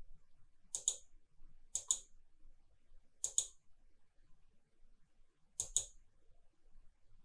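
Computer mouse clicking: four quick double clicks spaced a second or two apart.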